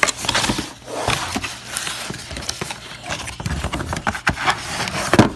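Cardboard packaging being handled: box flaps and cardboard inserts lifted, slid and scraped against each other, with scattered sharp knocks and clicks throughout.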